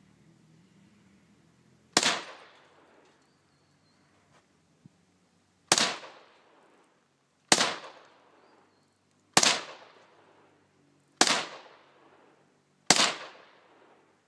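Six single rifle shots, spaced about two seconds apart, each sharp crack followed by a short echo trailing off.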